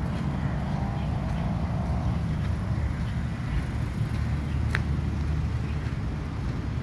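Steady low outdoor rumble, with a single sharp click a little under five seconds in.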